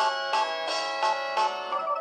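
Samsung SGH-C100 mobile phone playing one of its polyphonic ringtones: an electronic melody of quick notes with an accent about three times a second.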